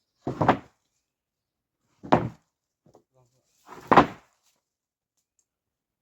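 Three short pulls on the starter cord of a Stihl MS 382 two-stroke chainsaw, about two seconds apart, without the engine catching.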